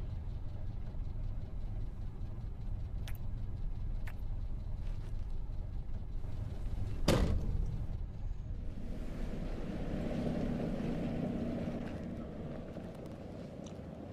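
Low steady rumble of a car running, heard from inside the cabin, with one loud sudden thump about halfway through. After it the sound turns into a softer, airier hiss.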